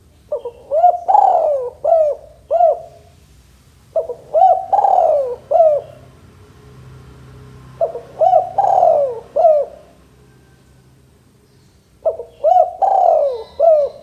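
Male spotted dove cooing: four phrases about four seconds apart, each a run of about five short coos with one longer coo in the middle that slides down in pitch.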